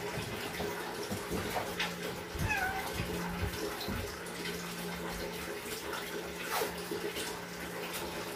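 A pregnant cat in labour gives one short, faint meow about two and a half seconds in, over a steady low hum and soft scattered clicks and rustles.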